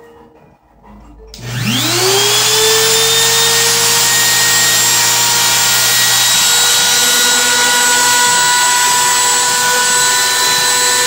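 Bosch 1-horsepower trim router serving as a CNC spindle, switched on: its motor spins up with a rising whine over about a second and a half, then runs loud and steady at full speed with no load.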